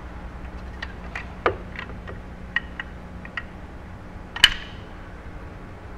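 Caulking gun being handled and its trigger squeezed to lay a sealant bead: scattered small clicks and knocks, with one sharp click about four and a half seconds in.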